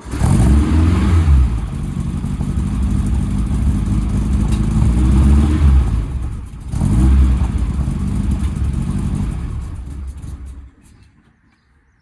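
Air-cooled VW flat-four engine of a split-window bus revving. It eases off about six and a half seconds in, revs again, and shuts off near the end.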